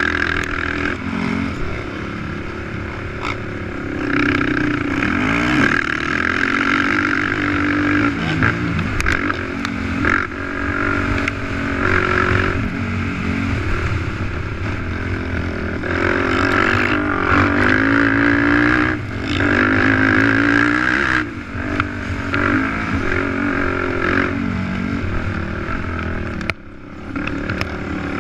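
ATV engine revving up and down while being ridden hard around a dirt motocross track, its pitch rising and falling with throttle and gear changes. It drops off briefly near the end.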